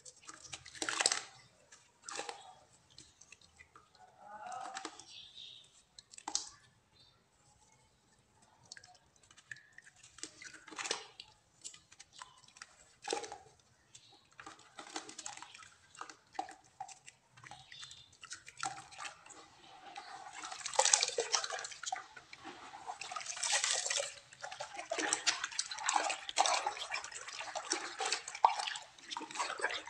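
Hands crumbling and squeezing lumps of clay and soil into a basin of water: separate wet crumbles, squelches and drips. In the last third the hands knead and swirl the muddy water, a denser run of sloshing and splashing.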